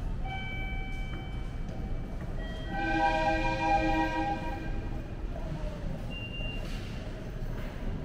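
JR train pulling in on the track below, sounding its horn: a held multi-tone blast, then a louder, fuller one about three seconds in, over the low rumble of the train.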